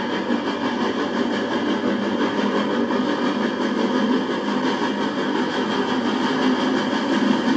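Norfolk & Western Y-class 2-8-8-2 articulated steam locomotive approaching, a steady working sound growing slightly louder.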